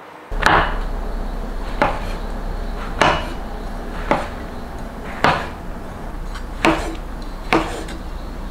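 Santoku knife slicing shiitake mushrooms on a wooden cutting board: seven unhurried knocks of the blade through the caps onto the board, about one every second, over a steady low background hum.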